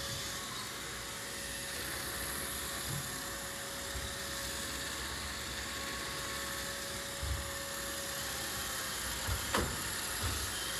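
Roomba robot vacuum running: a steady whirring hiss with a thin held whine, and a few brief low knocks, most of them near the end.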